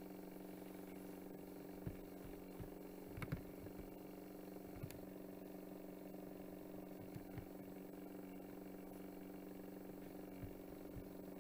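A steady low electrical hum of room tone, with a few faint clicks of a computer mouse scattered through it.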